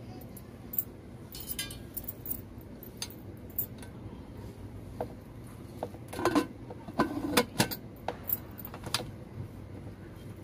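Metal clinks and scrapes of an aluminium pressure cooker's lid being set on and locked shut, with a cluster of louder clinks about six to seven seconds in.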